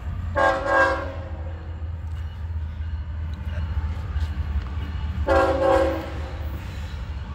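Diesel freight locomotive's air horn sounding two short blasts about five seconds apart, over the steady low rumble of the approaching train.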